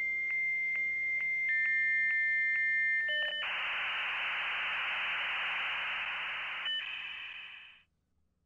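Dial-up modem handshake: a steady high answer tone broken by regular clicks about three times a second, with a second, lower tone joining. Then a loud rushing hiss for about three seconds, then a few closing tones and a fade-out near the end.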